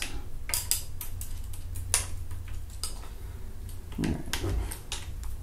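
Scattered light metallic clicks and clinks from a Seb NEO X front rifle rest's metal parts as its levers and fittings are repositioned by hand, with one sharper click about two seconds in, over a steady low hum.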